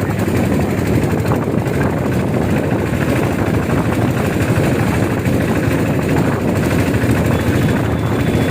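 A vehicle's engine running steadily while on the move, with a dense rumble of road and wind noise.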